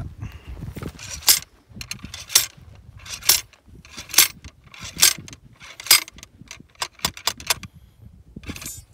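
Metal ramrod being worked up and down the barrel of a muzzle-loading rifle: a sharp metallic scrape-and-clank with each stroke, about one a second, six times. The strokes then give way to quicker, lighter clicks and a short rattle near the end.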